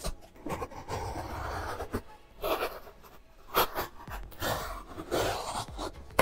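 A knife blade slitting the packing tape on cardboard shipping boxes: stretches of rasping scrapes through tape and cardboard, broken by a few sharp taps, the loudest near the end.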